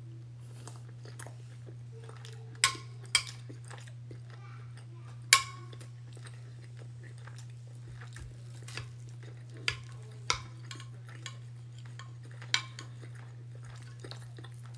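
Metal spoon clinking and scraping against a glass baking dish while scooping food, with a series of sharp clinks, the loudest about five seconds in. A steady low hum runs underneath.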